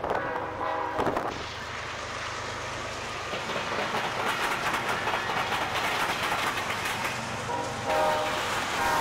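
A train passing close by, its horn sounding a blast at the start and again near the end. Between the blasts come the steady rumble and clatter of wheels on the rails.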